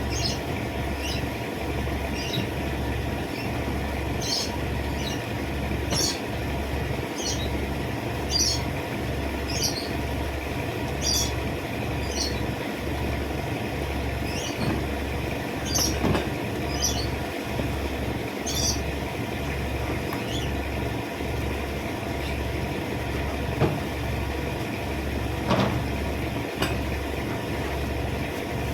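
A steady mechanical drone that pulses a little more than once a second, with short high chirps or squeaks scattered over it.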